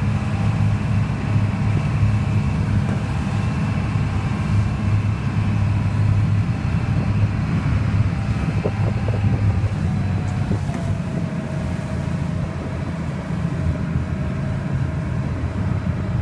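Small ferry's engine running steadily underway, a low drone, with water rushing along the hull.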